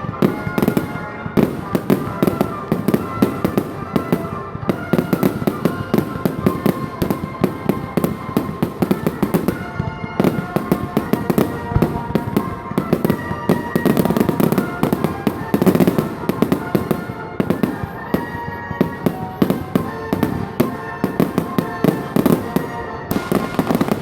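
Fireworks display in a continuous barrage: rapid bangs and crackles packed close together, with no letup.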